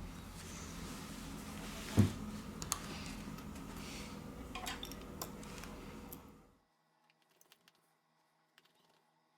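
Small clicks and light taps of tools and parts being handled on a workbench while a smartphone is reassembled, over a steady background hum. There is one louder knock about two seconds in, and the sound cuts to near silence a little after six seconds.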